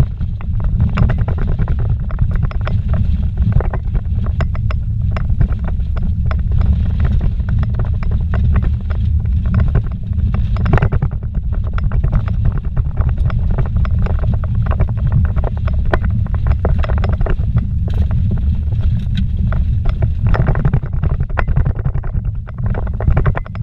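Vehicle driving fast over a rough dirt road, heard from inside the cab: a steady low rumble from tyres and engine, with constant knocks and rattles from the bumpy ground.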